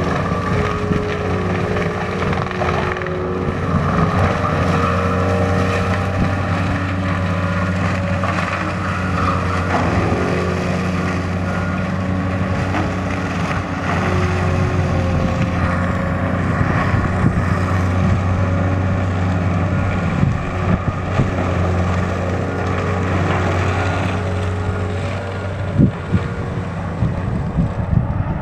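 Diesel engine of a wheeled forestry mulcher running steadily under load while its drum head grinds brush and saplings into mulch, with a few sharp knocks near the end.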